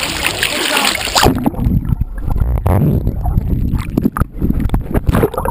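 Water sloshing and gurgling around a waterproof action camera at the water's surface. About a second in, the sound turns abruptly muffled and low, with knocks and crackles as water washes over and against the camera housing.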